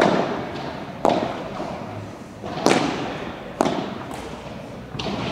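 A padel rally: five sharp hits of the ball, irregularly spaced about one to one and a half seconds apart, each ringing on briefly in the hall.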